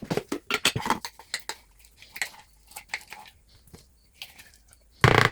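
Irregular knocks and clinks of kitchen utensils and dishes, busy for the first second and then sparse, with one loud short clatter near the end.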